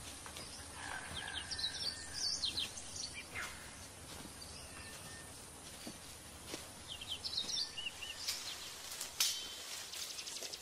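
Outdoor ambience with birds chirping in short high bursts, once early and again past the middle, over a steady background hiss. A few sharp clicks or snaps come near the end.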